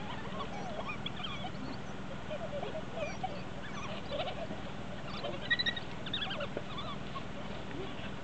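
An African wild dog pack twittering: many short, high-pitched chirps and squeaks overlapping, with a few louder calls about five and a half seconds in, over a steady low hum.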